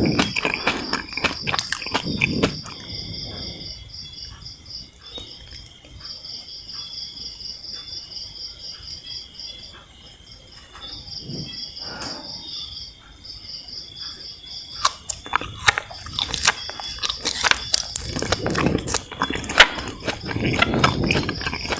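Close-up biting and chewing of sugar-coated jelly candies, with wet, sticky clicks and crunches. The chewing is softer through the middle and turns louder and denser in the last several seconds. Insects chirp steadily in the background.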